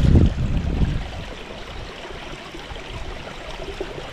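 Creek water flowing steadily, with a louder low rumble during the first second.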